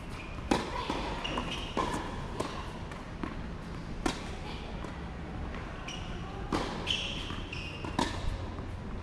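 Tennis rally on a hard court: sharp pops of rackets striking the ball and the ball bouncing, one every second or two at an uneven pace, the loudest about half a second in and again about eight seconds in.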